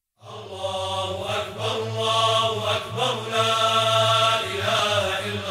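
A voice chanting long, held, wavering notes over a steady low drone.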